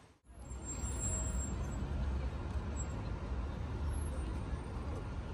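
Steady city street traffic, a continuous low rumble of passing vehicles. The sound cuts out for a moment right at the start.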